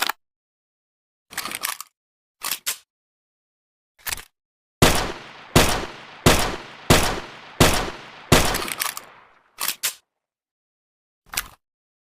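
Makeshift M1911 pistol sound effect: a few short, dry mechanical clacks, then six sharp shots in quick succession about 0.7 s apart, each trailing off in a decaying tail, followed by a couple more clacks near the end.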